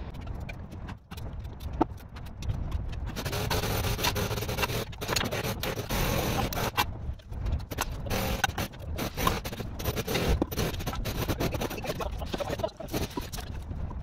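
Bricklaying by hand: a steel trowel scrapes mortar and taps bricks down onto their bed, giving a string of short scrapes and knocks, over a steady rushing background noise.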